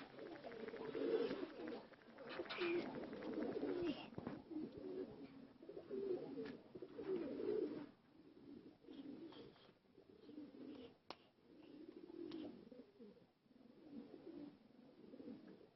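Domestic pigeons cooing, several birds giving repeated low coos that overlap, louder in the first half and fainter later, with a few faint sharp clicks in between.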